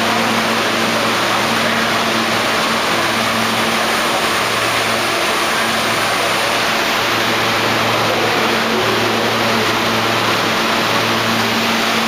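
A New York City subway train of R160 cars standing at the platform with its doors open, its on-board equipment running as a steady, loud rush of noise with a low electrical hum underneath.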